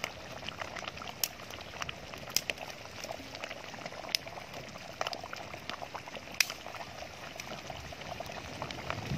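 Crab curry in coconut milk boiling in a metal pot over a wood fire: a steady bubbling hiss with irregular sharp pops.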